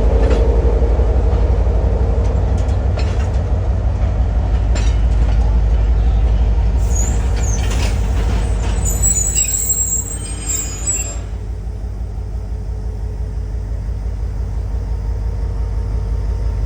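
Train running with a heavy low rumble and a few sharp clacks in the first several seconds. High-pitched metallic squealing comes in about seven seconds in and lasts some four seconds, after which the running sound is quieter and smoother.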